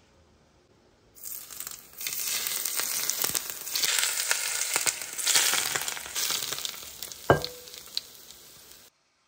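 Hot oil sizzling with many small crackles. It starts about a second in, is strongest through the middle, and stops abruptly near the end. A single sharp clink with a brief ring comes about seven seconds in.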